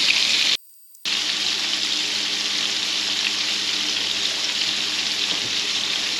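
Breaded crappie fillets sizzling in hot peanut oil in a frying pan: a steady hiss that drops out for about half a second near the start, then carries on.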